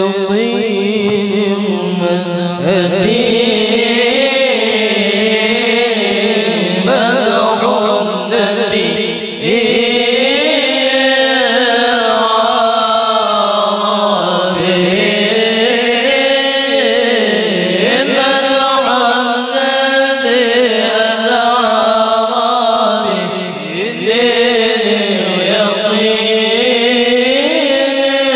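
A solo voice chanting an Arabic devotional melody through a PA sound system during a sound check. It is sung in long, ornamented phrases that bend up and down, with short breaths between them.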